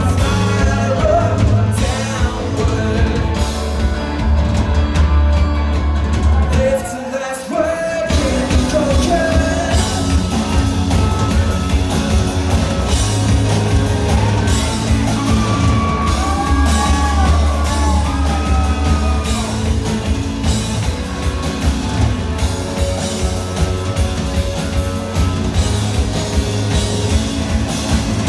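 Live rock band playing: drum kit and a heavy bass line under guitar, with a singing voice rising over the band at times. The low end drops out briefly about seven seconds in, then the full band comes back.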